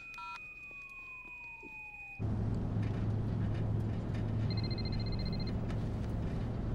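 Faint phone keypad beeps and a quiet, slowly falling tone, then about two seconds in a steady car-cabin road rumble with a low hum. Over the rumble a mobile phone's electronic ring pulses rapidly for about a second, midway through.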